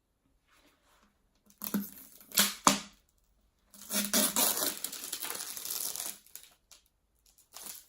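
A 2-litre plastic fizzy-drink bottle being handled: the plastic crinkles and cracks, with two sharp clicks partway through, then a longer stretch of crinkling.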